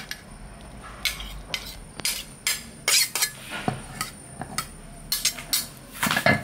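Kitchen utensils clinking and knocking against pots and dishes in irregular strikes, with a cluster of louder knocks near the end.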